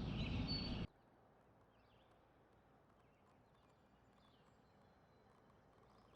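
Faint outdoor background noise that cuts off abruptly less than a second in, followed by near silence with a few faint, distant bird chirps.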